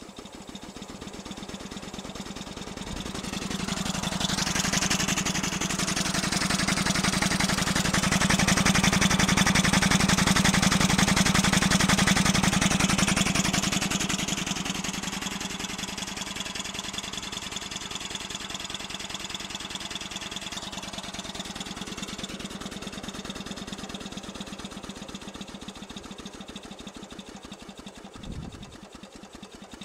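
A 12 hp Briggs and Stratton engine converted to run on steam, running fast with rapid, even exhaust chuffs and hissing steam. It grows louder to a peak through the middle, then eases off, with a single short thump near the end.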